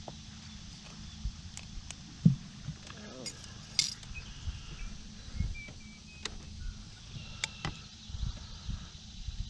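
Scattered light metallic clinks and ticks of fishing tackle being handled on a boat deck, with one sharp knock about two seconds in.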